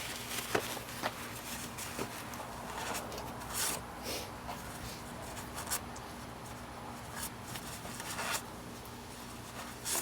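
Paper towel rustling and rubbing, with a few light clicks and knocks of things being handled, over a faint steady hum.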